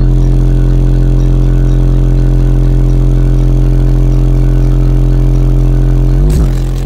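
Very loud deep bass note from four Skar DDX 15-inch subwoofers inside the Jeep's cabin. It holds steady for about six seconds, then slides in pitch near the end.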